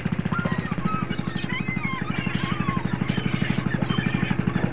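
A fishing trawler's diesel engine running, a rapid, even pulsing beat.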